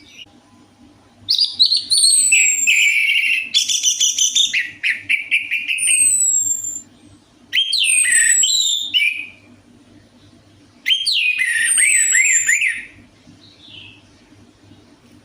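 Orange-headed thrush song in three separate phrases of fast, varied whistles and trills, with high falling whistled notes.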